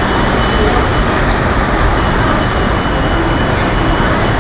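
Loud, steady boat-factory floor noise: a constant mechanical rumble and hiss with a faint high whine running through it. A couple of light clicks come in the first second or so.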